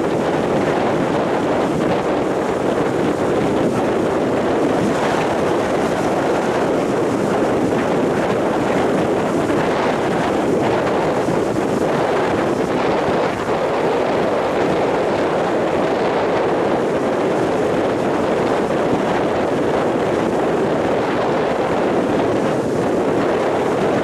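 Rough storm surf breaking and washing up a sandy beach, with strong wind blowing across the microphone. A steady, continuous rushing noise with no letup.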